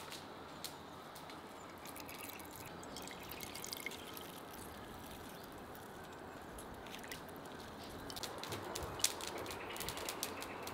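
Juice squeezed from grated onion in a cheesecloth bundle, trickling and dripping into a bowl. It gets a little louder near the end as the squeezing goes on.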